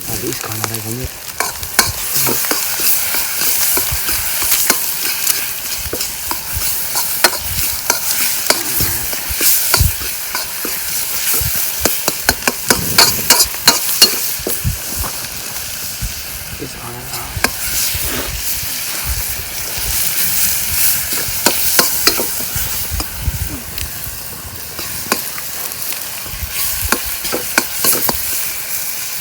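Food for a biryani sizzling as it fries in a pot, stirred and scraped by a spoon: many sharp, irregular scrapes over a steady hiss.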